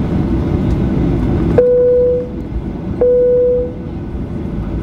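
Two single-tone chimes from the Boeing 737-800's cabin chime system, about a second and a half apart, each ringing out briefly at the same pitch. Under them runs the steady rumble of the taxiing jet.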